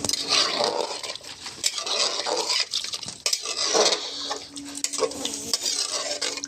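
A metal spoon stirring and scraping in a cooking pot, clinking against its sides, while food fries and sizzles in oil.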